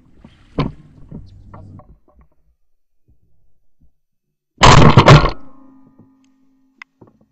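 A shotgun firing at a duck: a sharp crack about half a second in, then a much louder, distorted blast a little past the middle, lasting about half a second and trailing off into a low ringing hum.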